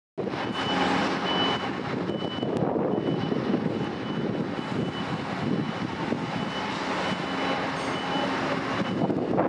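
Steady machine noise with a high beep sounding on and off throughout.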